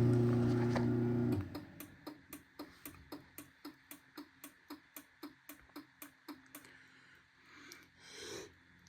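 Chamberlain B353 belt-drive garage door opener motor humming, then cutting off about a second and a half in. Then a run of evenly spaced clicks, about three a second, from the opener as its light blinks to signal that the safety sensors are blocked.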